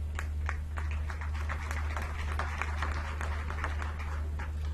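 Audience applauding: many hands clapping in a dense, irregular patter, with a steady low hum underneath.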